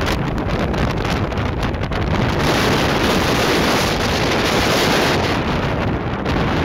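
Storm-force wind buffeting the microphone: a loud, rough rushing that turns denser and steadier about two seconds in.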